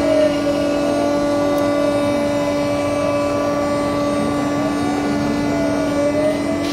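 A QueenBee Pro CNC router running: its 2.2 kW water-cooled spindle gives a steady high whine, while the stepper motors' whine slides up and down in pitch several times as the axes speed up and slow down.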